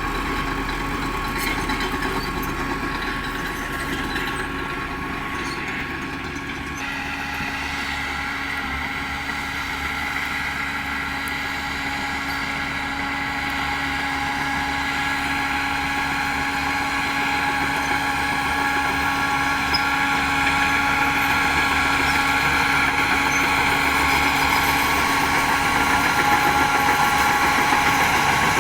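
Diesel engine of a SHANTUI DH10B2 mini bulldozer running steadily while it works. Its note shifts about seven seconds in and grows gradually louder toward the end.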